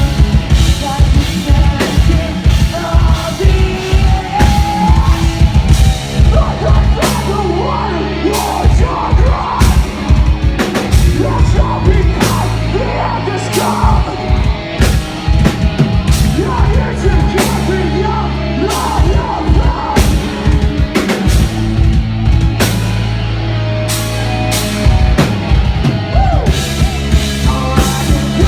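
Rock band playing live at high volume: a pounding drum kit and heavy bass under sung, partly shouted vocals.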